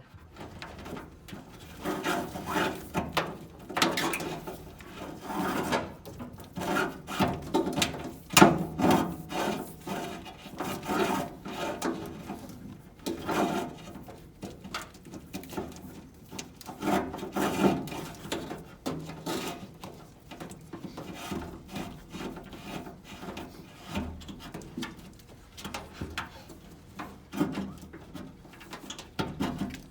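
Wiring harness being pushed and pulled through a grommet hole in a car body, rubbing and scraping in irregular strokes.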